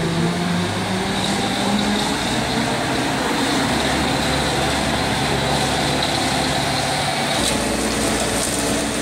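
Concrete mixer truck's diesel engine running steadily, with a constant street-traffic noise around it.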